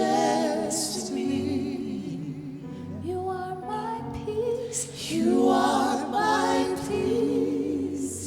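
Gospel song: voices singing a slow, held melody with vibrato, with light instrumental backing.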